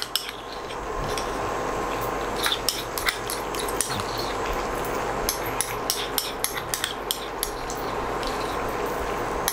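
Thick idli halwa mixture boiling in a non-stick pan, with ghee melting into it: many short, irregular pops from bubbles bursting, over a steady hum.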